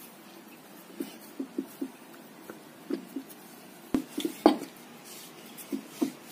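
Rolling pin working chapati dough on a wooden chopping board: scattered light taps and knocks as the pin is pushed and lifted, with two sharper clacks about four seconds in.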